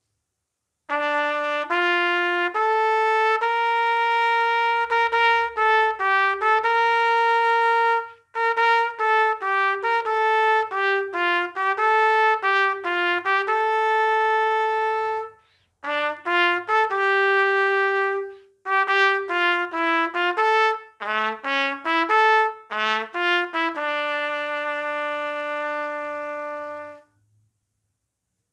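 Solo B♭ trumpet playing a slow, legato melody unaccompanied, in four phrases with short breaths between them. It ends on a long held low note that lasts about three seconds and stops shortly before the end.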